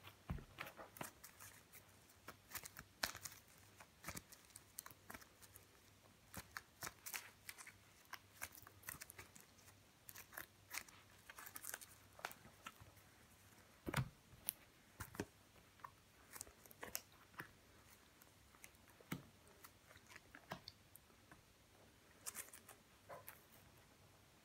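A deck of playing cards being handled: an irregular string of soft clicks and snaps as the cards are picked up, shifted and squared in the hands and laid out on a cloth-covered table. One louder knock comes about halfway through.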